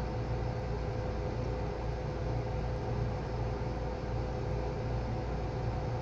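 Steady background hum and hiss with a constant faint tone: room noise picked up by the microphone.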